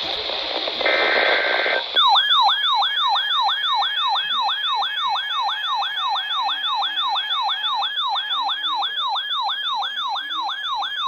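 Emergency Alert System alert tones: the last burst of the SAME header data, a harsh digital screech, ends about 2 s in. A siren-like attention tone follows, sweeping rapidly up and down about three times a second.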